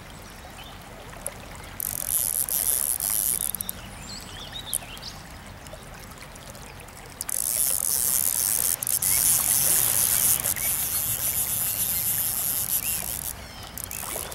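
A hooked fish splashing at the surface of a stream as it is played on a fly rod, in two spells: a short one about two seconds in and a longer one from about seven seconds in until near the end, over the steady run of the stream.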